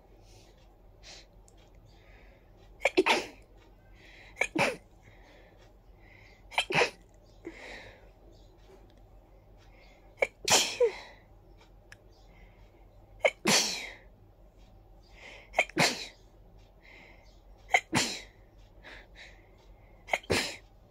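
A person sneezing over and over in a fit set off by a tickly nose: about eight loud sneezes a few seconds apart, with fainter breaths between them.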